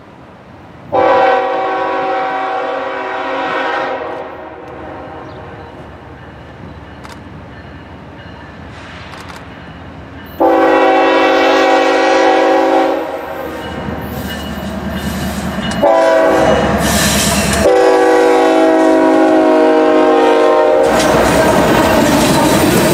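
Diesel freight locomotive's air horn sounding three separate blasts as the train approaches, the last the longest, over a rising rumble of the train. Near the end the cars roll past close by with loud wheel-on-rail noise.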